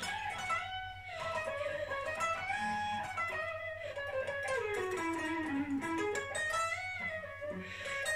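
Unaccompanied electric guitar, a sunburst Stratocaster-style guitar, playing a lead solo in a single melodic line: held notes with vibrato and bends, and a run that steps down in pitch around the middle.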